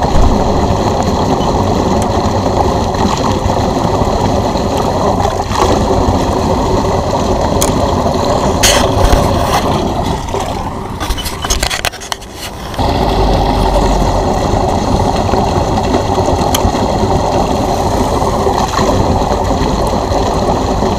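Electric pool pump draining a pool through a drain hose, a steady rushing run. About halfway it falters and fades for a couple of seconds, with a few clicks just before, then comes back at full strength.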